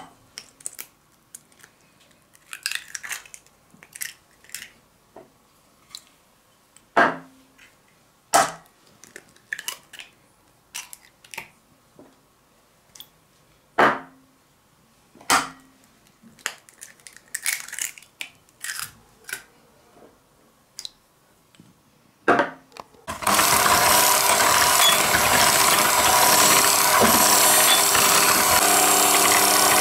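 Eggs knocked against the rim of a pot: a series of sharp taps, some with a short ring. About 23 s in, an electric hand mixer switches on and runs steadily, beating the eggs into the sugar.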